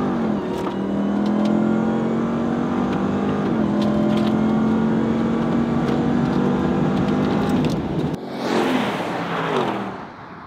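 Supercharged V8 truck engines at full throttle in a roll race, pulling hard, with the pitch stepping about a third of a second in and again about three and a half seconds in. About eight seconds in, the trucks pass by with a rush of noise and a falling engine pitch that then fades away.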